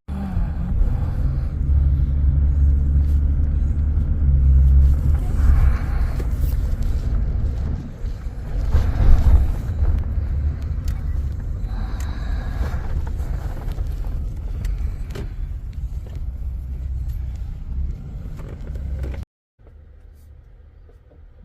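Steady low rumble of a car moving on the road. It cuts off suddenly about 19 seconds in, leaving a much quieter background.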